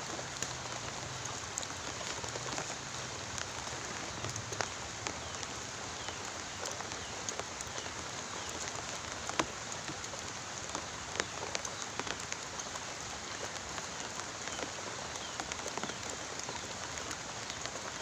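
Steady rain falling, a continuous patter with scattered sharper drop ticks.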